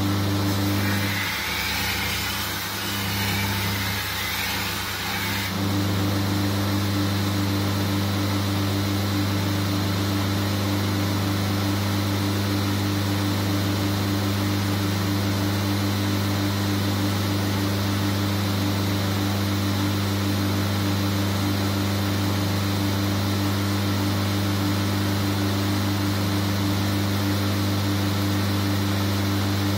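Electric belt grinder running with a steady hum. For about four seconds near the start, a curved sabre blade is pressed to the belt to grind its edge bevel: a rough grinding hiss that masks the hum, which then returns.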